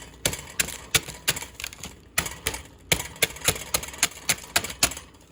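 Block of dry instant ramen noodles being crushed in its cup with the back of a spoon: a run of sharp crunching cracks, about three a second.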